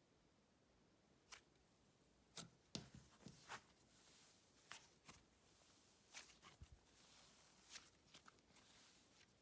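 Faint, scattered sticky clicks and crackles of slime being squished and stretched by hand.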